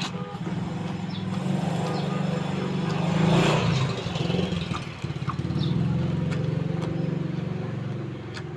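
A motor engine running steadily with an even low pulsing, swelling louder about three and a half seconds in and easing off again.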